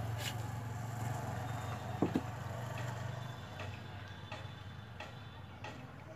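Light scattered clicks and clinks of a small engine's recoil starter being handled, its pulley and small spring knocked against the housing, with a sharper double clink about two seconds in. A low steady hum sits underneath and fades about halfway.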